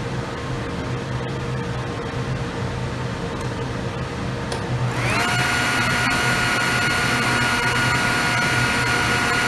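Table saw with a dado stack switched on about five seconds in: the motor spins up with a short rising whine, then runs at speed with a steady high whine, over a steady machine hum heard throughout.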